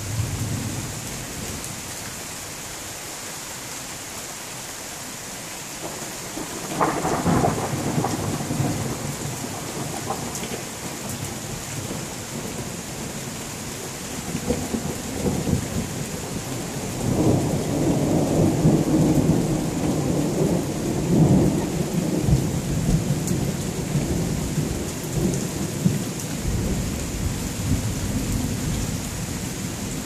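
Thunderstorm: steady rain with thunder, a sudden crack about seven seconds in, then a long low rumble that builds from about halfway, peaks, and dies down near the end.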